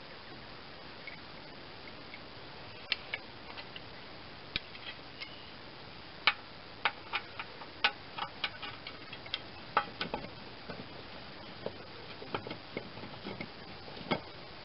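Irregular sharp metal clicks and taps as a new mower-deck spindle assembly is set into the steel deck shell's mounting hole and shifted around to line up its bolt holes. The clicks are sparse at first and come thick and fast about halfway through.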